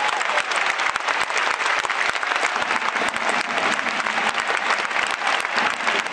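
Large stadium crowd applauding: dense, steady clapping.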